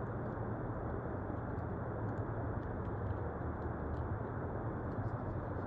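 Steady low hum and hiss, with faint light ticks now and then.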